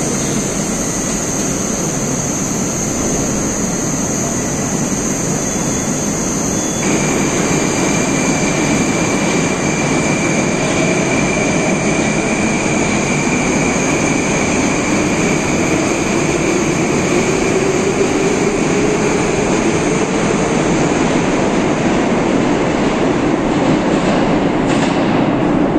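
Moscow Metro 81-760 subway train running loud and steady beside the platform. From about ten seconds in, the whine of its traction motors rises slowly in pitch as the train gathers speed.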